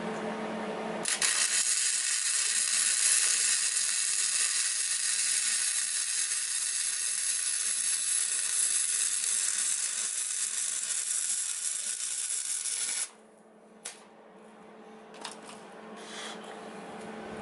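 Flux-core wire-feed welder laying a bead: a steady, loud crackling sizzle that starts about a second in and cuts off suddenly after about twelve seconds. A low steady hum is heard before and after the bead, with a few sharp clicks near the end.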